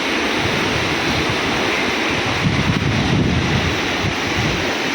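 The flooded Swat River, its water rushing steadily and loudly, with wind buffeting the microphone in gusts around the middle.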